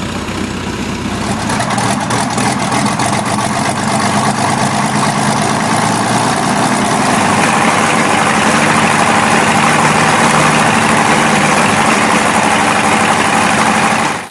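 A Wright Flyer replica's engine running briefly. About a second in, a Ranger L-440 six-cylinder inverted inline air-cooled aero engine takes over, running close by with rapid exhaust pulses, and it grows louder about halfway through.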